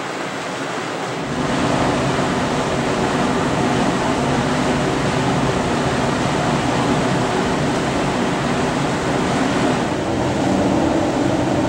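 A large cruise ship passing close, its engines and ventilation fans giving a steady low hum under a rushing noise. The sound steps up about a second in.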